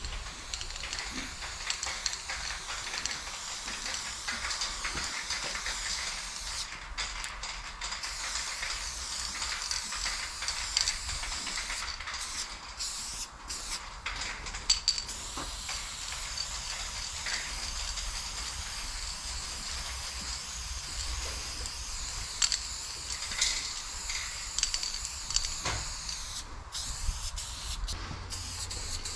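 Aerosol spray-paint can hissing as black paint is sprayed onto a brick wall, long near-continuous sprays broken by a few short pauses.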